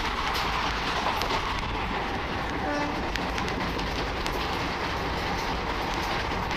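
Running noise of a passenger train heard from on board at an open door or window: a steady rush of wind and wheels on rail, with scattered sharp clicks from the wheels and track.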